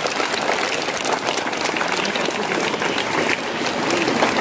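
Large crowd of schoolchildren applauding, many hands clapping at once.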